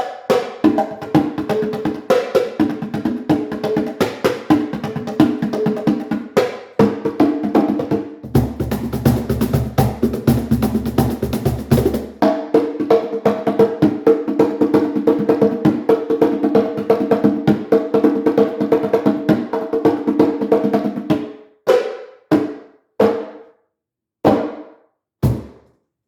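Drums played in a fast, dense stream of strokes, with a stretch of heavier, deeper hits about a third of the way in. Near the end the playing thins to a handful of separate strikes, each ringing out.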